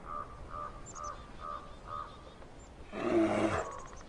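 Grizzly bear growling once, a loud brief growl about three seconds in. Before it, a run of short repeated calls comes about twice a second.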